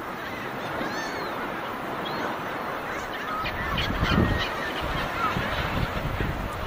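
A flock of gulls calling, many short overlapping squawks, busiest and loudest about four seconds in, over a steady background rush.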